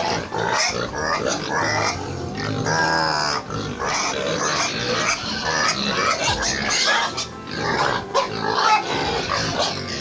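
A pen of pigs grunting and calling as they feed together at a trough, with a high squeal about three seconds in, over background music.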